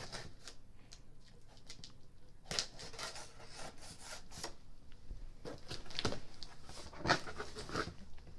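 A cardboard shoebox being cut and pried open by hand: irregular scraping and rustling, with a few sharper clicks, the loudest about a second from the end.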